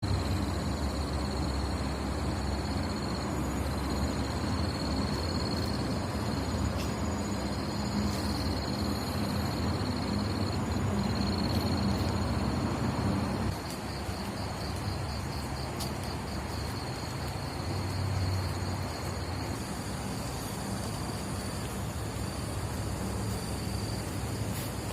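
A stream flowing, with crickets trilling steadily on one high note above it. The water's low rush drops noticeably a little past halfway.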